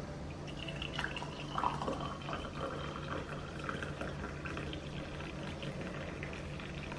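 Liquid pouring and trickling, with small clicks, over a steady low hum.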